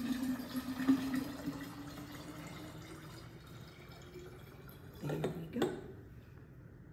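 Margarita mix poured in a steady stream from a glass measuring cup into a glass carafe, the pitch of the pour rising slowly as the carafe fills, then thinning and fading as the cup empties.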